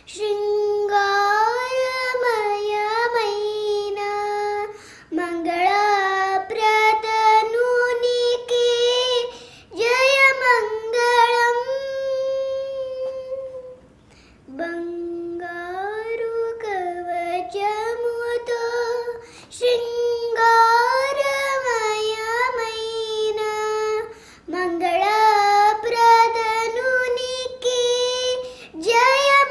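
A young girl singing solo and unaccompanied in Carnatic style, raga Sindhubhairavi, holding long vowels with sliding, ornamented turns of pitch. She breaks briefly between phrases, the longest pause about halfway through.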